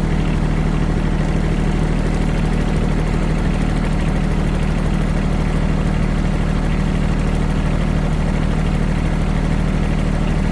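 A motor vehicle's engine idling steadily and evenly, its low running note unchanged.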